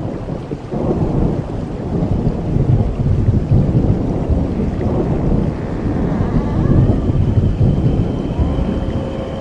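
Thunder rolling in a rainstorm: a continuous low rumble that swells and eases, with faint thin drawn-out tones coming in over it from about six seconds in.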